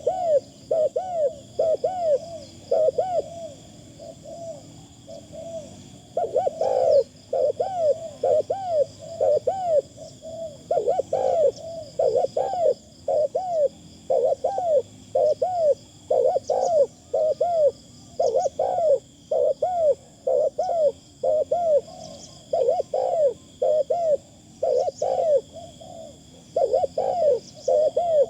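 Spotted doves cooing: a long run of short, arched coos, about two to three a second, in phrases with brief pauses.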